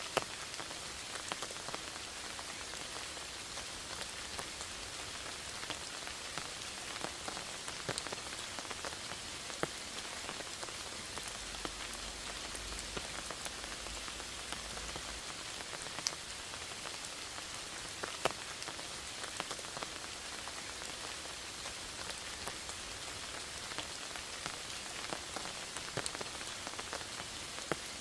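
Rain falling in a forest: a steady hiss of rainfall with many sharp, separate drips landing close by.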